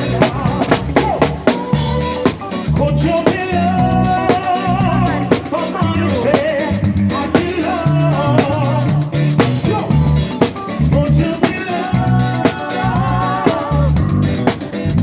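A live band playing an upbeat song, with a drum kit keeping a steady beat under a repeating bass line and a gliding lead melody.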